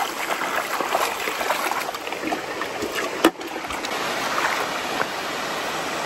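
Steady rushing of creek water, with one sharp knock about three seconds in.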